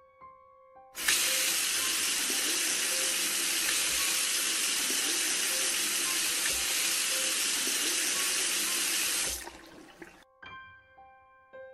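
Water tap running steadily into a bathroom sink for about eight seconds. It comes on abruptly about a second in and cuts off near the end, with soft, sustained music tones underneath.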